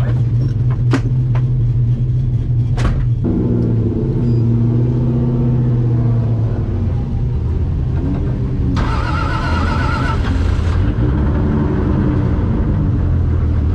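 Car engine running with a steady low drone and shifting pitch. About nine seconds in, a higher wavering screech lasts about two seconds, and there are a few sharp clicks in the first three seconds.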